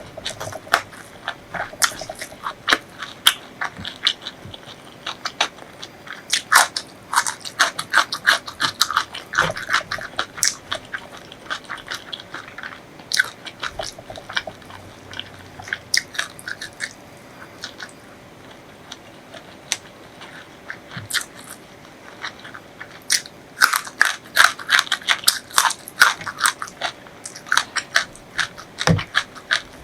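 Close-miked chewing and biting of crunchy food, with runs of rapid crisp crunches and a sparser stretch of softer chewing in the middle.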